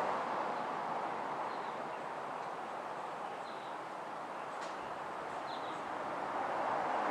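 Faint, short, high bird chirps about every two seconds over a steady rushing background noise that grows louder near the end.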